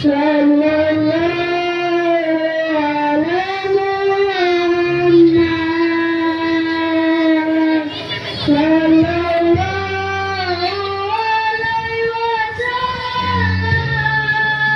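Children singing an Islamic devotional song (sholawat) into microphones: a slow melody with long held notes, over a steady backing accompaniment.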